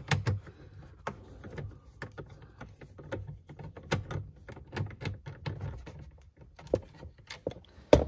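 Irregular small clicks and light knocks of a 7mm nut driver being worked on the bolt that holds a pickup truck's lower dash panel, with a louder knock near the end.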